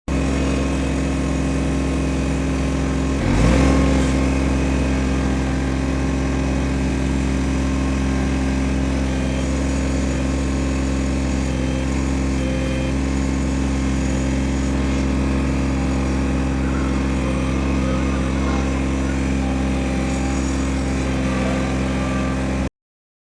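Tractor engine running at a steady speed. A single knock or thump sounds a little over three seconds in.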